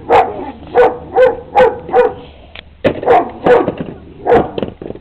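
A dog barking loudly, about nine short barks in two runs with a brief pause near the middle.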